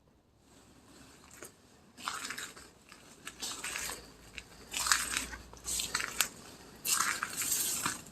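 Irregular crunching and crackling of dry debris underfoot, as someone picks their way through the ruin, starting about two seconds in with the loudest crunches near the middle and near the end.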